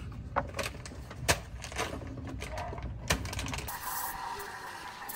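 Espresso machine steam wand hissing steadily into a stainless milk pitcher, steaming milk, from about three and a half seconds in. Before it, a low hum with a few sharp clicks and knocks from the coffee-making gear.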